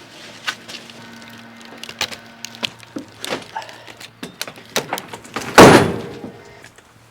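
Junk being loaded up by hand: a run of light knocks and clatter, then one loud heavy thunk about five and a half seconds in that rings on briefly.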